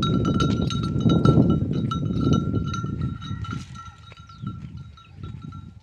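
A livestock bell on a walking camel clanking with its steps, holding a steady high ringing note, over a low rumble that dies down about three seconds in.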